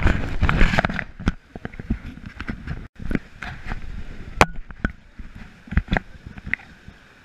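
Inflatable raft on a whitewater river: a loud rush of splashing water in the first second, then scattered knocks and thumps from paddles and gear against the raft.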